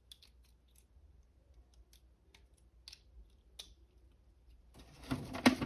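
Small plastic clicks of a Transformers action figure's joints as its legs are folded out: faint, scattered clicks at first, then louder handling with one sharp clack near the end.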